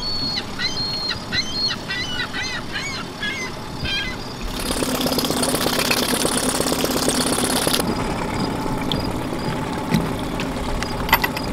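Small birds chirping, then a Mercury 20 hp four-stroke outboard motor idling close by, with the hiss and splash of its cooling-water stream hitting the water, for about three seconds from about four and a half seconds in.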